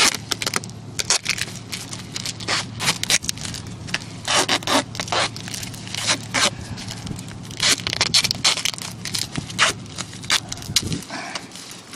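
Dry hay rustling and scraping in quick, irregular strokes as hands dig a hole into a round hay bale.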